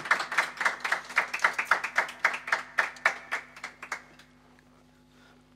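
A small group of people clapping after a song, dying away about four seconds in, leaving only a faint steady hum.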